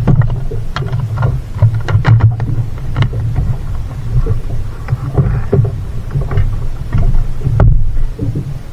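Loud, uneven low rumble with scattered knocks and taps, the sound of a fishing boat on the water.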